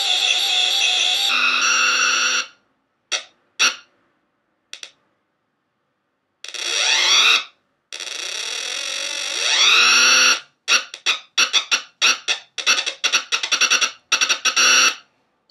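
Circuit-bent VTech Groovy Tunes Radio toy glitching through its speaker: a harsh buzzy electronic tone cuts out, leaving a few short blips. It then comes back in sweeping-pitch bursts and ends in a rapid stutter of chopped-up bursts that stops suddenly near the end.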